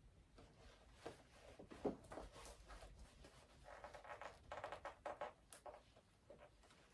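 Faint rustling of clothing with small clicks and a brief rapid rasp as a metal-buckled belt is fastened over a blazer.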